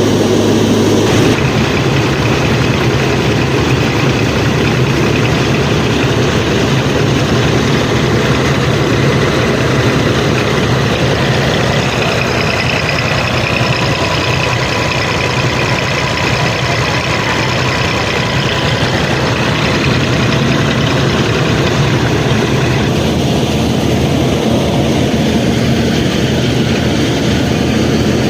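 Steady engine-like running of a machine, the sound changing abruptly about a second in and then holding steady.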